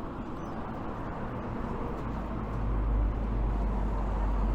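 Street traffic noise, a steady hum of passing vehicles, with a deep low rumble building up about halfway through.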